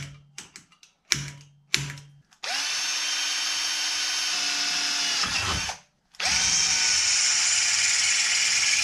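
Cordless drill boring holes in a metal bracket held in a vise, stepping it out to 5 mm. First come a few short clicks and quick blips of the trigger, then two long steady runs of about three seconds each, with a brief stop between them.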